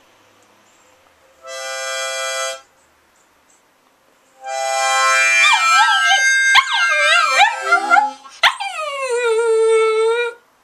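A harmonica plays a short steady chord, then starts another, and a small Chihuahua-type dog joins in, howling along with wavering, bending pitches. It finishes on a long howl that falls and then holds.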